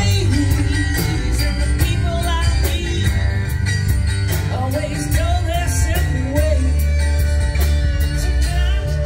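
A song playing, with singing, guitar and a steady drum beat over a strong bass line.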